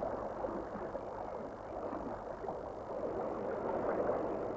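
Steady, muffled rushing of river water heard underwater, an even wash of sound without distinct splashes or clicks.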